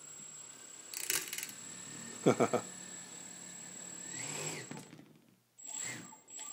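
Four small brushless motors of a quadcopter, Turnigy 1300 motors on Turnigy Plush 10 A speed controllers, spinning up on the bench without propellers: a quiet whine that climbs in pitch and then dies away near the end. A few quick, loud knocks come about two seconds in.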